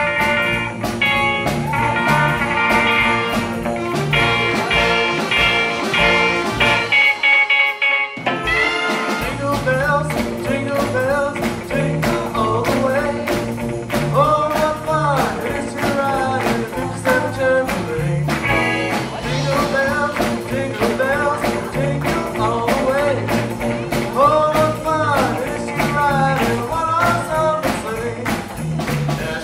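Live rockabilly band with a horn section: held horn chords over drums and bass for about the first eight seconds, a brief break, then a man singing lead over electric guitar, a walking upright bass and drums.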